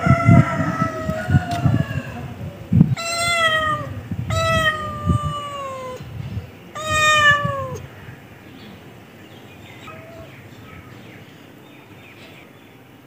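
Domestic cat meowing: a run of calls over the first eight seconds, the last three long and sliding down in pitch, then it falls quiet.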